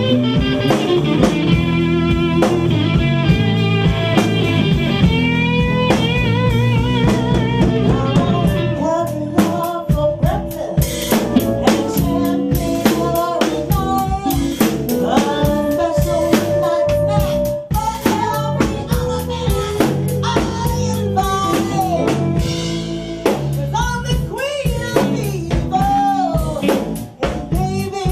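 Blues band playing live, captured as the room sound off the amplifiers: an electric guitar lead with bent, wavering notes over a drum kit. About nine seconds in the guitar backs off and the drums come to the fore.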